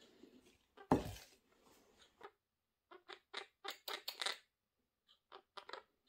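A small pet parrot chattering in short, scratchy chirps, a quick run of them in the middle and a few more near the end, after a single thump about a second in.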